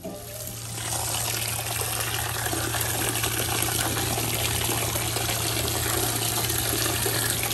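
Tap water running in a steady stream, with a low steady hum underneath.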